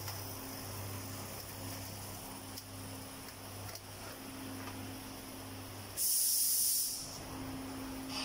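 Automatic doypack pouch packing machine running with a steady low hum. A few faint clicks sound along the way, and about six seconds in there is a loud hiss of compressed air, about a second long, typical of a pneumatic cylinder venting as the machine cycles.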